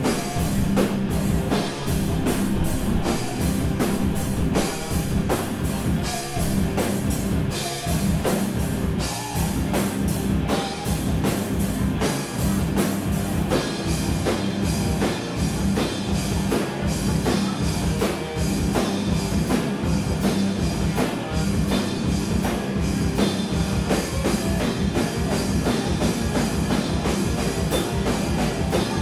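Live rock band playing: electric guitar, drum kit with steady rapid hits, and keyboard synth, picked up by a recorder at the back of a small club room.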